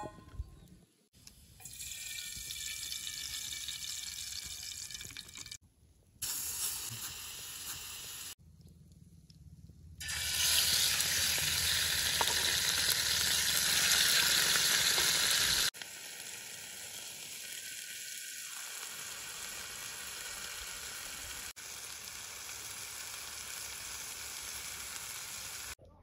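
Raw chicken pieces frying in hot oil in a frying pan over a wood fire, a steady sizzle. It cuts in and out across several short takes and is loudest for about six seconds in the middle.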